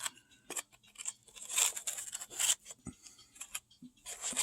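Handling noise from small 3D-printed model parts and their packaging: scattered light clicks and crinkling rustles as they are picked up and moved about.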